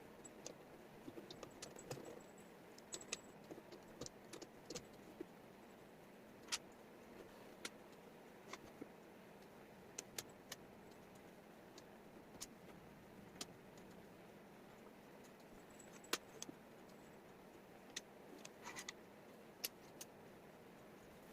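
Light, irregular clicks and taps of wooden jigsaw puzzle pieces being handled and set down on a table, over a faint steady hiss.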